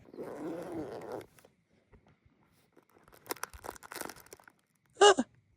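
Rustling and crinkling handling noise, a soft rustle at first and then scattered crackles. A brief voiced sound comes near the end.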